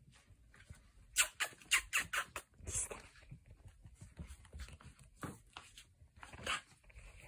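Patter and clicks of a Griffon puppy's paws as it scampers about: a quick run of sharp clicks about a second in, then scattered taps.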